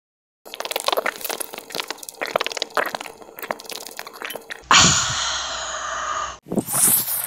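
A thin plastic water bottle crackling and crunching as it is gripped and handled, a quick run of small clicks. About four and a half seconds in, a loud shout lasting over a second cuts across it.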